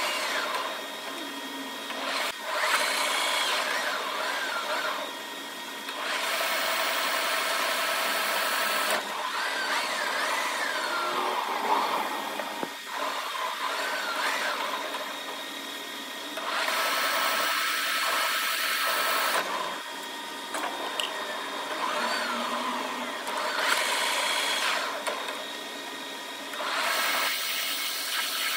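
Metal lathe cutting an M47 × 3 mm thread into a C45 steel workpiece in repeated passes. The machine runs with a steady gear whine, and a louder stretch of about three seconds of cutting noise recurs roughly every ten seconds.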